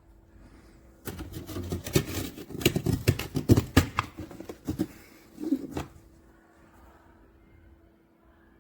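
A quick run of clicks, knocks and rattles of the plastic mini fridge being handled, thickest about two to four seconds in and dying away by about six seconds, over a faint steady hum.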